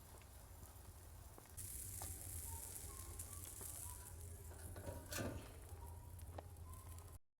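Hissing and crackling of fish cooking over an open wood fire, with a few sharp pops. The hiss grows louder a little over a second in, and the sound cuts off to silence just before the end.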